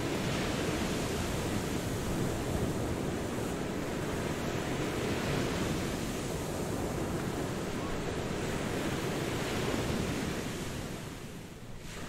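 Ocean waves washing onto a beach: a steady rushing surf that eases off briefly near the end, then swells again.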